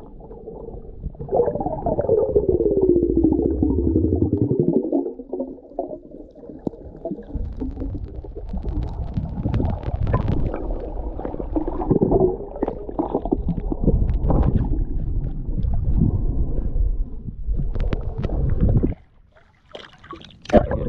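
Muffled underwater rumbling and gurgling, picked up by an action camera in its waterproof housing while snorkeling. A falling tone sounds in the first few seconds. The muffled sound cuts off suddenly near the end as the camera comes up out of the water.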